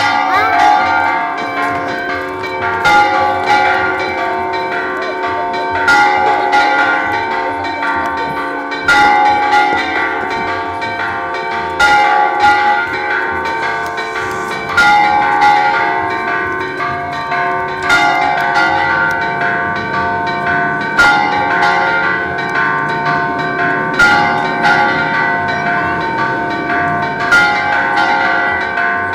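Several church bells ringing continuously, struck over and over so that their tones overlap, with a louder stroke about every three seconds.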